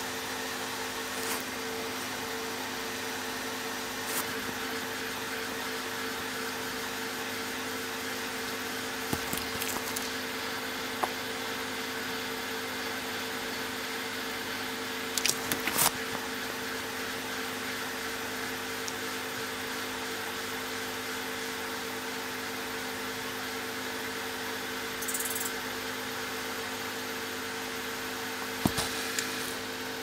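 Steady low hum with a hiss behind it, broken by a few light clicks and taps of a soldering iron and wire against a small metal connector held in pliers, loudest in a short cluster about halfway through and again near the end.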